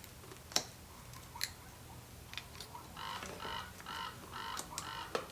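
A few light clicks and taps from a motorcycle throttle tube and its cable being worked off the handlebar, then, about three seconds in, a run of about six short squeaky chirps in quick succession.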